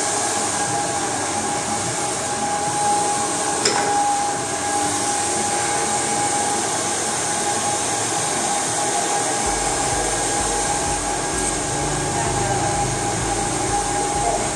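Hair dryer running steadily, a constant whirring hiss with a thin whine. A low, regular pulsing joins it about two-thirds of the way in.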